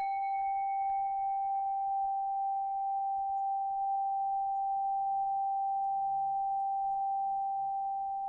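A meditation bell struck once, ringing out in one long, steady tone; a higher overtone dies away within the first few seconds while the main tone holds and begins to fade near the end.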